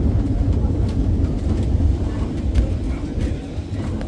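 Heritage tram running on its rails: a steady low rumble with a few faint clicks.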